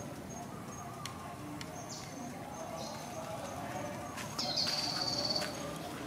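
Baby long-tailed macaque squealing: a few short, thin chirps, then a louder, high, slightly wavering squeal of about a second a little past the middle.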